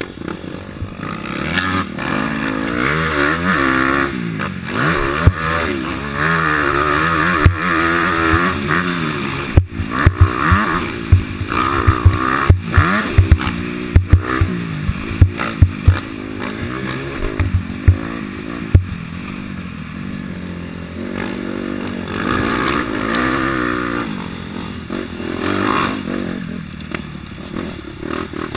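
Honda CRF250 four-stroke single-cylinder motocross bike engine revving up and down as it is ridden hard round the track, heard close from the bike. A run of loud thumps through the middle as the bike crosses bumpy ground.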